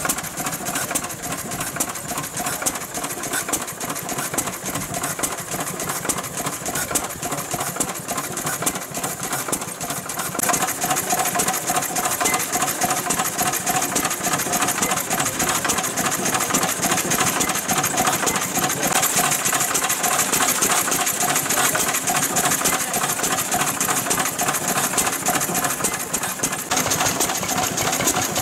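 Vintage stationary engines running steadily, with a rapid, even mechanical chatter of strokes. The sound changes in character about ten seconds in and again near the end.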